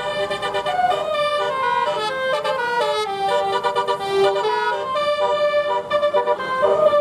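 Indonesian 'telolet' bus horn, a set of multi-trumpet air horns tuned to different notes, playing a tune of held notes and quick stepping runs, with a fast string of short notes a few seconds in.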